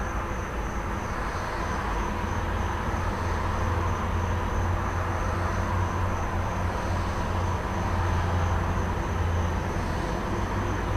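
Idling truck engine with a steady low rumble, under a wash of road traffic, while crickets trill in one steady high note.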